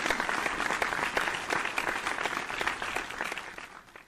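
Audience applause, a dense run of clapping that dies away near the end.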